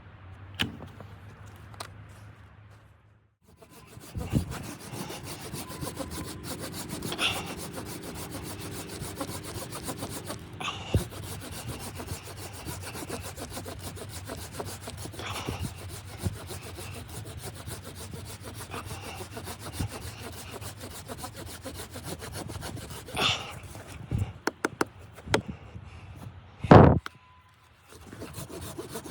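Wood being sawn: a continuous rasping that starts a few seconds in and breaks off near the end, followed by a few knocks and one loud thud.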